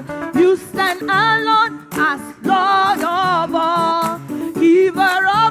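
Worship singing with musical accompaniment: a lead voice sings phrases of a praise song, holding wavering notes.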